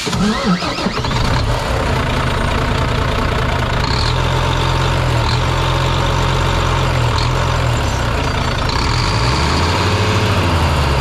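Volvo D13 inline-six diesel engine starting up and settling into a steady idle about a second in, running with the turbocharger's VGT actuator unbolted and removed.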